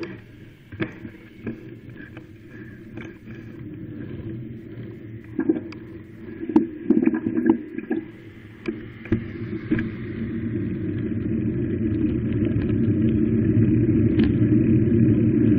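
Wind rumbling on the microphone of a phone carried on a moving bicycle, with scattered knocks and rattles through the first half. The rumble grows louder and steadier over the last third.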